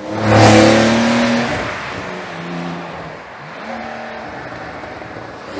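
2022 Porsche 911 Carrera GTS twin-turbo flat-six with its sport exhaust, passing close by at speed: a loud rush of exhaust and tyre noise about half a second in, the engine note dropping in pitch as it goes past, then fading as the car pulls away.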